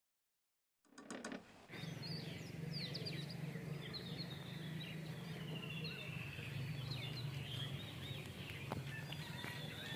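Birds chirping, many short high chirps over a steady low hum, starting suddenly about a second in after silence.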